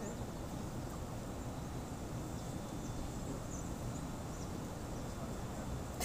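Steady outdoor background noise, mostly a low rumble, with a few faint high chirps around the middle.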